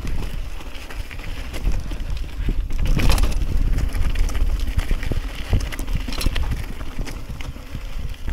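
Mountain bike riding down a stony mountain path: tyres crunching over stones with scattered knocks and rattles from the bike, over a steady low wind rumble on the microphone. It gets louder and rougher about three seconds in.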